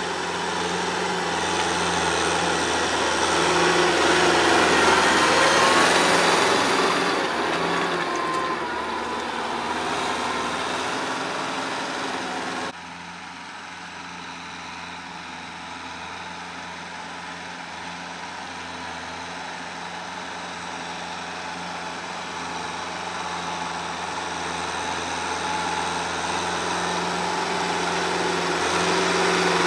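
Kubota tractor's diesel engine running steadily under load while working a rotary tiller. It grows louder to a peak about five seconds in and then eases off. It drops suddenly about halfway through, then builds slowly again toward the end.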